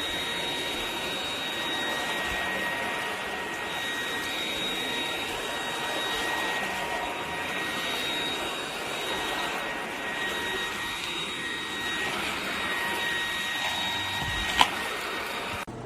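Eureka RapidClean Pro cordless stick vacuum running steadily, its motor giving a high whine over the suction rush. A sharp click comes near the end, and the sound stops abruptly just after.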